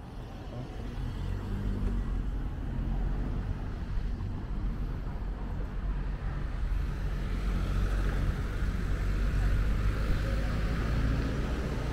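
Street traffic: a motor vehicle engine's low, steady hum builds over the first couple of seconds and then holds. A hiss joins it about halfway through.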